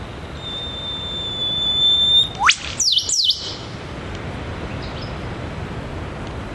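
Eastern whipbird duet: a long steady whistle from the male ends in a sharp, fast-rising whip-crack, answered at once by the female with two quick descending notes.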